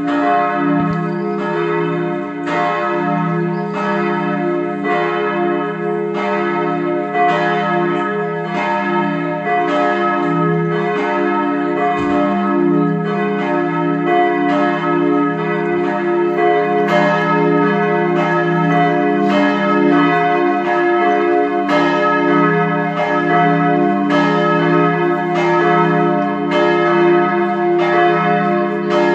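Steel church bells from the Bochumer Verein, cast in 1921, swinging and ringing together as a full peal, the strokes overlapping irregularly over a sustained hum. Only the d¹ and f¹ bells of the h°–d¹–f¹ diminished-triad peal ring, because the h° bell is not yet allowed to ring on its new motor; the uploader says the f¹ keeps dropping strokes since the restoration.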